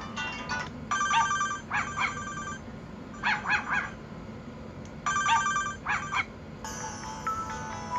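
LG Lotus ringtone playing from the phone's loudspeaker: a short chord of electronic notes followed by quick rising-and-falling sounds, the phrase repeating about every four seconds. Near the end a different ringtone with longer held notes begins.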